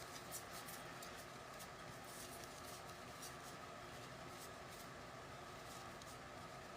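Faint, scattered small clicks and rustles of trading cards and their plastic sleeves being handled, over a low steady room hum.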